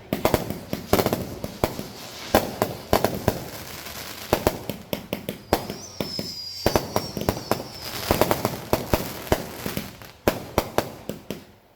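Consumer fireworks going off in rapid series: many sharp bangs and crackles, with a thin high whistle that drops slightly in pitch about halfway through.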